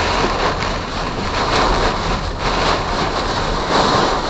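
Heavy thunderstorm rain and strong wind gusts battering a car, heard from inside the cabin as a loud, even rush that swells several times, over a low steady road rumble.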